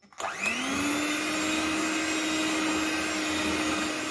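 Electric hand mixer starting up, its motor whine rising quickly in pitch and then holding steady as the beaters mix flour into whipped eggs and sugar for a sponge batter.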